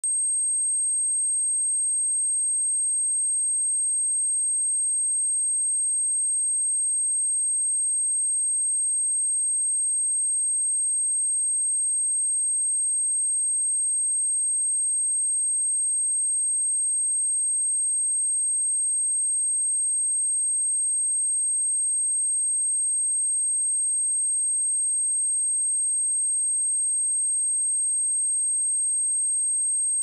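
A steady, pure 8414 Hz sine-wave test tone: one high-pitched note held without change. It is a speaker test tone, also meant for shaking water and dust out of a speaker.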